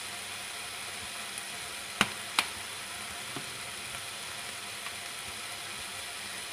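Minced chicken and onion sizzling steadily in a frying pan, with two sharp clicks close together about two seconds in.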